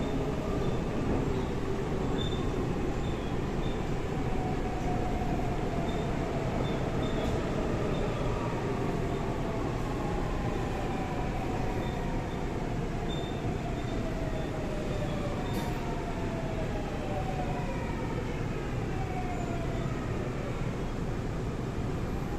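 Daewoo–Alstom GTO VVVF traction inverter and motors of a Seoul Line 4 4000-series subway train whining over steady running rumble. Several whining tones slide down in pitch one after another as the train brakes.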